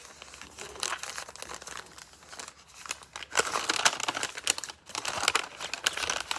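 Folded paper instruction leaflet from a hair-dye kit being unfolded and handled, with irregular crinkling and rustling that grows louder and busier about halfway through.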